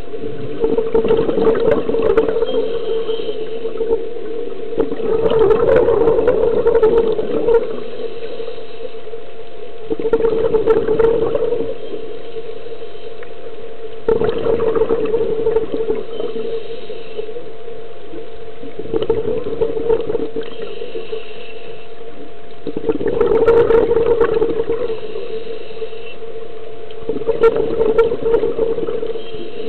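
Scuba diver breathing through a regulator underwater: a rush of exhaled bubbles about every four seconds, seven times, over a steady low hum.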